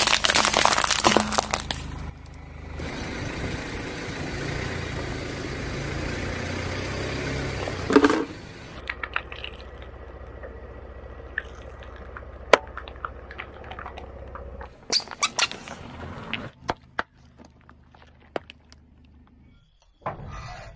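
Car tyres crushing one object after another. A glass fluorescent tube shatters loudly at the start; after that come quieter crunches, clicks and squeaks as smaller items are pressed flat under the tyres, including a plastic squeeze bottle.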